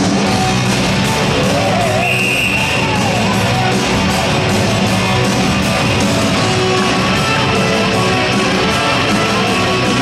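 Rock music with guitar, playing steadily.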